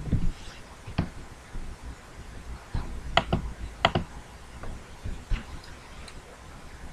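A few scattered computer mouse clicks, two of them close together a little over three seconds in, as the PDF viewer's zoom-in button is pressed.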